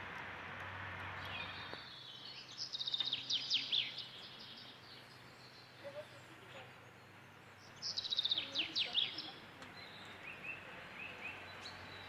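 A songbird singing two short phrases of quick, high, falling notes, the first about two and a half seconds in and the second about eight seconds in, over a faint outdoor background.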